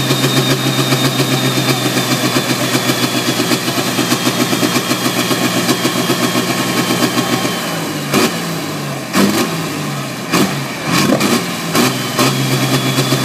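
Diesel engine of a tractor puller running with a fast, even idle pulse and a high whine over it. About eight seconds in the engine note drops and wavers, broken by several sharp cracks, before it settles back to the steady idle near the end.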